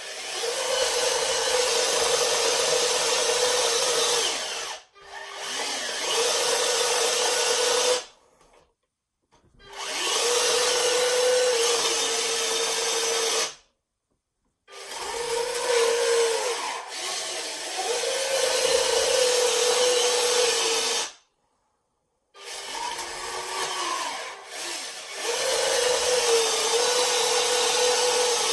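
Electric drive motors and gearbox of a radio-controlled Warthog toy tank whining as it crawls on its tracks up and down a ramp. It runs in five stretches with short stops between, and the whine dips in pitch now and then.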